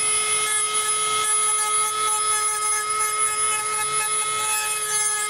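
Dremel rotary tool running at a steady high speed with a grinding-stone bit, a constant whine with a grinding hiss over it as the stone sharpens and flattens the edge of a tool-steel knife blade.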